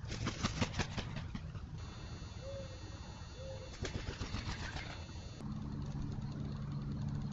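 A run of sharp taps and knocks, then two short low coo-like bird notes a second apart, more taps, and from about five seconds in a steady low hum.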